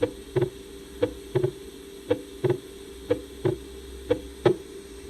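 Heart sounds heard through a stethoscope at the pulmonic area during deep breathing: a regular lub-dub, about one beat a second, with the first sound (mitral and tricuspid valves closing) followed about 0.4 s later by the second sound (aortic and pulmonic valves closing). A steady faint hum runs underneath.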